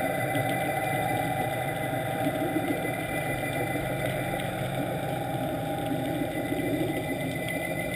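Sightseeing boat's engine and propeller noise heard underwater: a steady mechanical drone.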